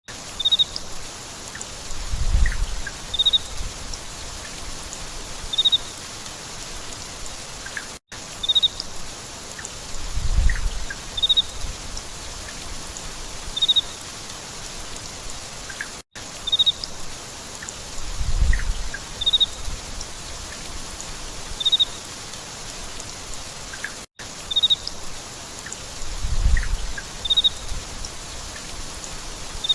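Steady rain falling, with a small bird chirping briefly every couple of seconds and a short low rumble about every eight seconds. The same eight-second stretch repeats as a loop, with a brief dropout at each join.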